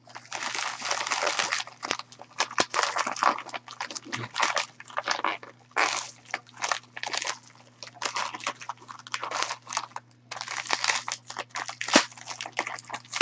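Plastic packing wrap rustling and crinkling as it is handled and pulled off a wrapped item by hand, on and off with short pauses.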